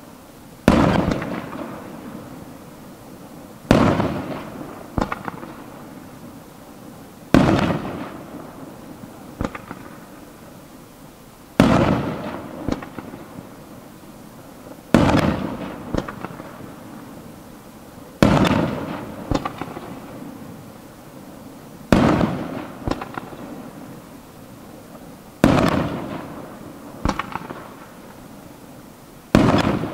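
Aerial firework shells going off in a steady sequence, a loud bang about every three and a half seconds. Each bang has a fading rumble and one or two smaller sharp cracks after it.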